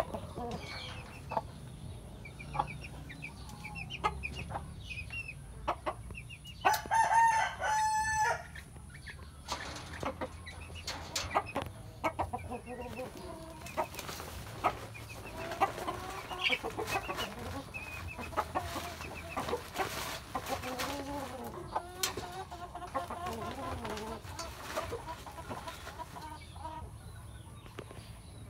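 Cuban-breed chickens clucking and calling, with a rooster giving one short crow about seven seconds in, which is the loudest sound. The calls grow busier about halfway through.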